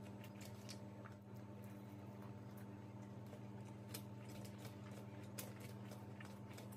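Faint wet clicks and squishes of eating by hand: fingers working biryani rice and chicken curry, and chewing. Underneath runs a steady low hum.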